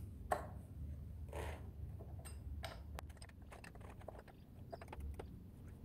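Small metallic clicks and taps as an e-bike crank arm is worked off its spindle by hand after its Allen bolt is undone. There is one sharp click about a third of a second in, a brief rustle, and then a run of many quick light clicks.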